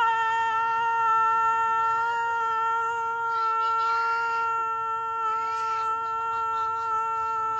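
A voice holding one long, steady, high note without a break.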